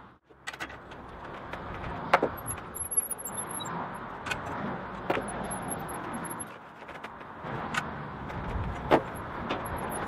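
Hand-cranked bench bar roller bending 10 mm solid steel bar into a ring, with sharp metallic clinks every second or two over a steady rumble.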